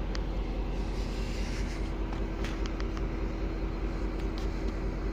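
V/Line N-class diesel locomotive N460's EMD 12-cylinder two-stroke engine idling with a steady hum while the train stands, not yet moving.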